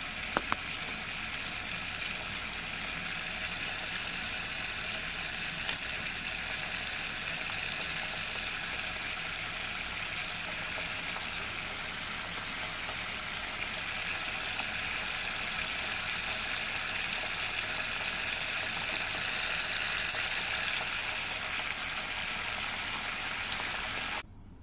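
Mapo tofu sauce simmering in a hot sandwich pan over a lit gas burner: a steady bubbling hiss with small crackling pops, which cuts off suddenly near the end.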